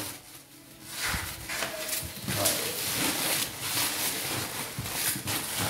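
Plastic bubble wrap rustling and crinkling as a French bulldog puppy bites and tugs at it, starting about a second in. A few short vocal sounds from the puppy come through.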